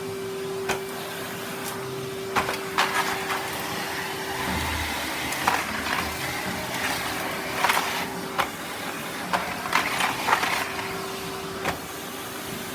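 Vacuum cleaner running with a steady whine and a rushing of air, with scattered sharp clicks and rattles through it, typical of debris and the nozzle knocking as it cleans the floor.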